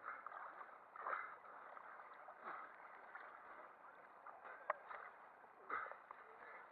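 Lake water sloshing and splashing around a person wading through it, coming in faint irregular surges, with one sharp click about two-thirds of the way in.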